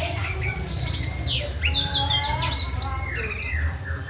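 Orange-headed thrush singing a fast, varied song of whistled notes, quick sweeps and falling slurs mixed with harsh chattering notes, over a steady low hum.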